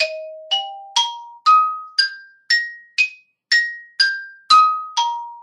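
Musser xylophone playing a two-octave E-flat major arpeggio, one mallet stroke per note at about two notes a second, each bar ringing briefly. The notes climb to the top about three seconds in, then step back down.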